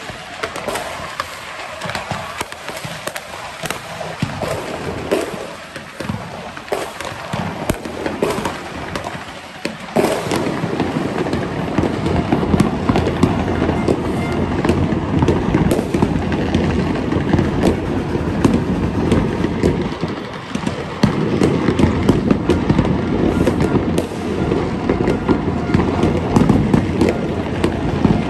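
New Year fireworks and firecrackers going off: scattered bangs and crackles at first, then a dense, louder run of continuous crackling and popping from about ten seconds in.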